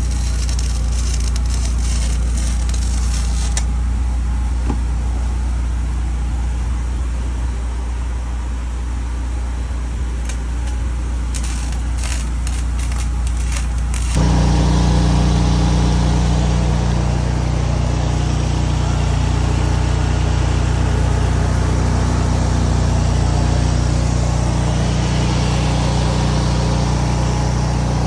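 An engine running steadily with a low hum. About halfway through it gets louder and fuller.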